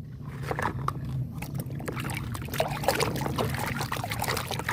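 Water splashing and trickling as a toy is washed by hand, with many irregular small splashes and knocks over a low steady hum.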